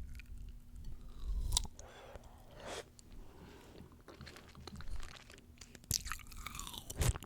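Close-miked chewing of crisp fresh fruit: irregular wet crunches and crackles, the loudest about a second and a half in and again near the end.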